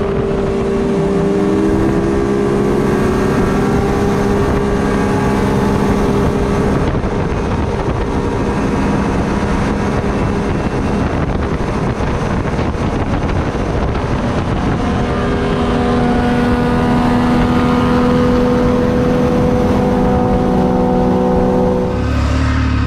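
Turbocharged sport side-by-side engines at full throttle on a quarter-mile drag pass, holding a steady high engine note under heavy wind noise. The note changes to a lower one near the end.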